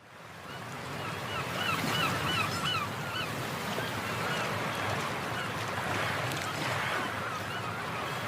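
Outdoor nature ambience: a bird calling in a quick series of short chirps for a few seconds, with a few more calls later, over a steady rushing noise. It fades in at the start.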